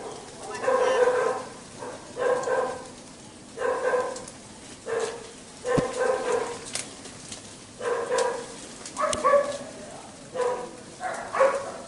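A dog barking over and over, about nine barks roughly a second apart.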